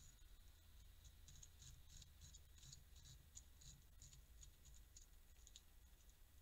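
Eurasian beaver gnawing wood at the base of a tree trunk: faint, dry scraping bites, a few a second.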